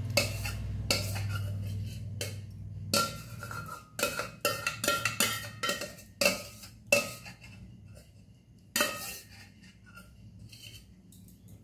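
Metal clinks and knocks of a stainless steel pan and utensil as thick cooked coconut pudding is poured and scraped out into a glass bowl: a run of sharp clinks, thickest from about three to seven seconds in, then a few scattered ones. A low hum fades out about three seconds in.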